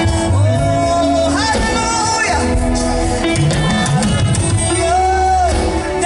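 Worship song: a voice singing long held notes over instrumental backing with a steady bass.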